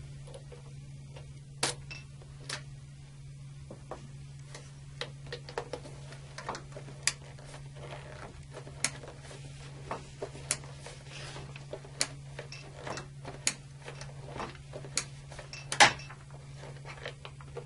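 Manual charging handle of an Eaton Series NRX air circuit breaker being pumped to charge its stored-energy closing spring: a series of irregular mechanical clicks about once a second, with a louder click near the end. A low steady hum runs underneath.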